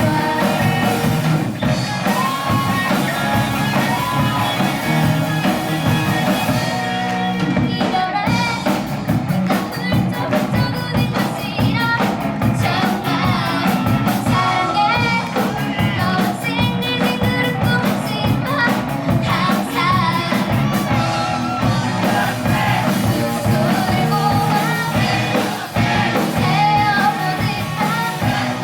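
A student rock band playing live, a singer over the full band with drums.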